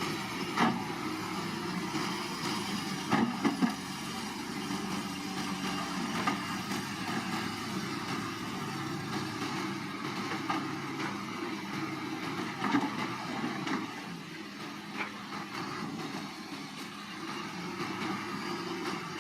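Bulldozer's diesel engine running steadily, with a few sharp knocks or clanks over it, a cluster of them about three seconds in.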